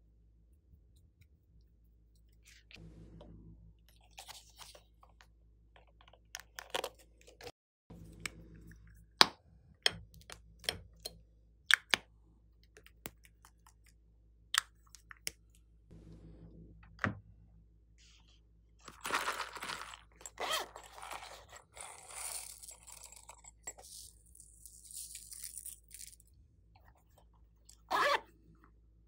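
Hands handling small plastic makeup containers and tools over a glass bowl of slime. There are scattered sharp clicks and taps, then several seconds of scraping and rustling, and a short louder rasp near the end.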